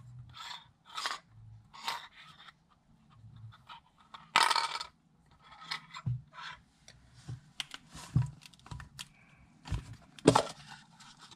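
Metal Pokéball tins being handled: hands rubbing and gripping the thin tin shells, with scrapes and light metal knocks as they are turned and set down. A longer scrape about four seconds in, and a sharp knock near the end as the Ultra Ball tin is gripped.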